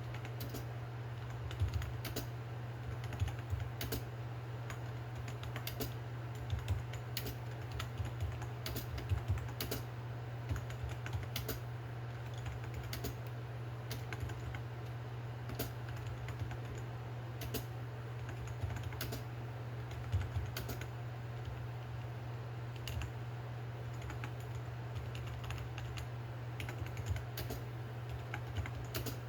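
Skytech K-1000 gaming keyboard being typed on: keys clacking in irregular runs of strokes, some louder than others, over a steady low hum.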